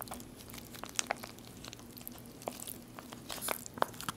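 MRE entree pouch crinkling as chicken burrito bowl rice is squeezed out of it onto a plastic tray, with scattered short clicks and rustles.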